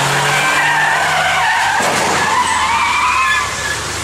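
Car tyres squealing as a car skids on a wet race track, a wavering high screech over the engine's running note, for about three and a half seconds before easing off.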